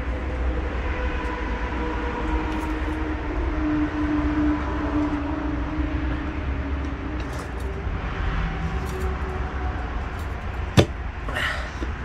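A screwdriver and a flat steel tyre lever working a small tyre bead off its steel rim, with scattered soft handling noises and one sharp metallic click near the end, over a steady low rumble with a faint hum.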